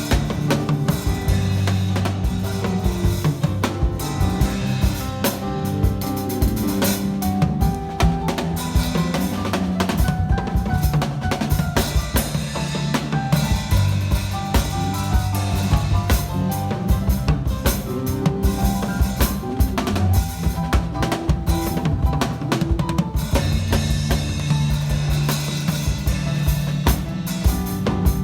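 Live band music led by a drum kit, with rapid snare and rimshot hits, bass drum and rolls, over a bass line and sustained keyboard notes.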